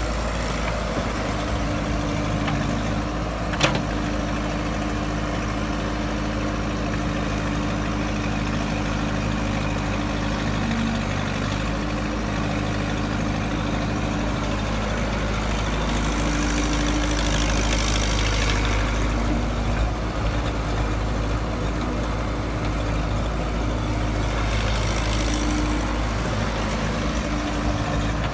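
Excavator's diesel engine running steadily, with a single sharp knock about four seconds in and a stretch of louder hiss around the middle.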